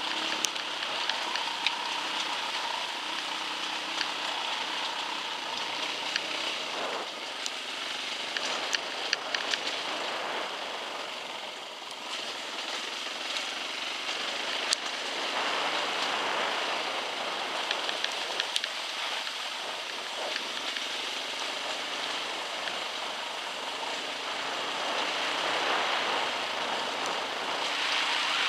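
Dirt bike riding down a wet, rocky track: steady engine and wind noise, with tyres crunching over stones and scattered sharp clicks.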